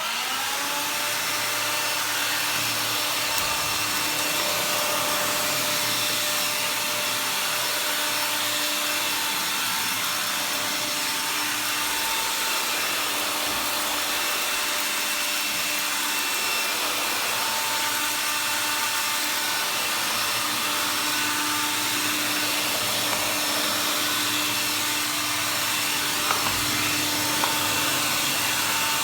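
Electrolux Ergorapido cordless stick vacuum switched on and running steadily, its motor whine rising to speed in the first second. A couple of light knocks near the end.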